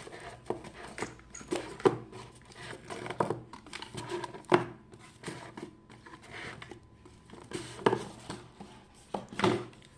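Hands opening packaging and taking out the contents: irregular clicks, taps and rustles of cardboard and paper, with a few sharper knocks.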